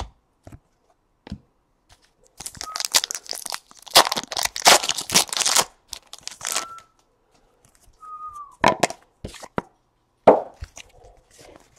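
A foil trading-card pack wrapper being torn open and crinkled in a dense rush of tearing in the middle of the stretch. Scattered sharp clicks and taps of cards being handled come around it, along with two brief squeaks.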